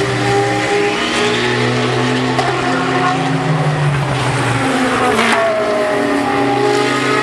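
Several race car engines running hard at once as a pack of GT cars drives through a corner, their notes overlapping and shifting in pitch. About five seconds in, one engine note drops sharply as a car goes by.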